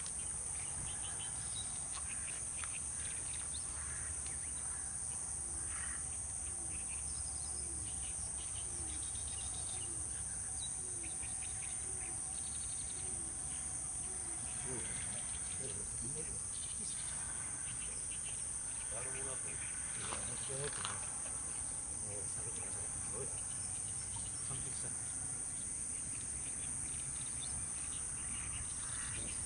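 A steady, high-pitched chorus of insects, with faint scattered calls below it, including a run of short rising calls about once a second midway.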